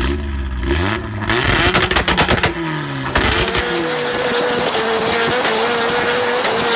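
A drifting car's engine revving hard, rising and falling several times, then after about three seconds a sustained tyre squeal with a wavering pitch as the car slides sideways through a corner.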